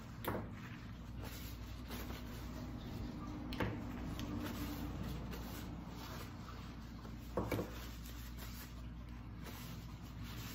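Paper towel rubbing over plastic lip gloss tubes as they are wiped down, with three short clicks as the tubes are handled and set down. A steady low hum runs underneath.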